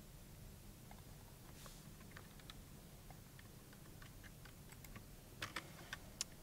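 Faint computer-keyboard typing while a password is entered: scattered soft key clicks, then a quicker, louder run of keystrokes near the end.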